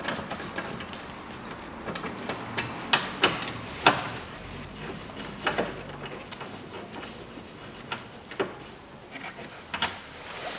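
Irregular metallic clicks and knocks of a ratchet and socket undoing the M6 bolts that hold a plastic air intake duct, with the duct being handled near the end.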